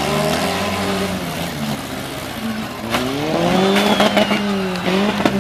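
Several compact demolition-derby cars' engines revving, their pitch rising and falling, with tyre noise and a couple of sharp bangs as the cars ram each other.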